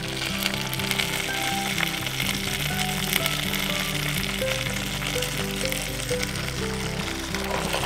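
Roasting chicken sizzling in a cast-iron skillet on the hot coals of a wood-fired oven, a steady fine crackle. Background music plays along with it.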